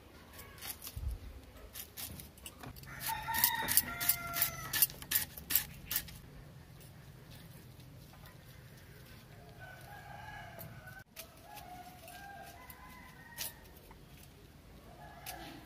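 A rooster crowing about three seconds in, one drawn-out call falling in pitch, among a run of sharp clicks. Later, chickens clucking more quietly.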